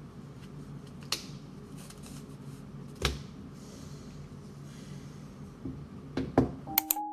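Light knocks and taps of a notebook and pen being handled and set down on a desk, the loudest a dull thud about three seconds in, with a cluster of quick clicks near the end, over a steady low room hum. Soft piano music comes in just before the end.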